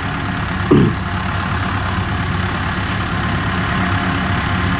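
Engine of a small tracked rice-sack carrier running steadily at idle. A short shout cuts through it about a second in.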